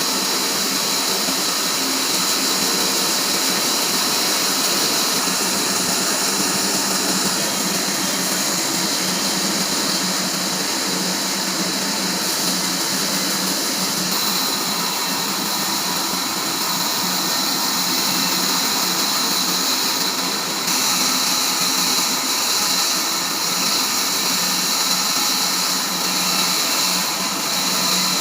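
Band sawmill running, its blade sawing through a pine log: a steady high hiss over a low motor hum, which dips briefly and brightens slightly about twenty seconds in.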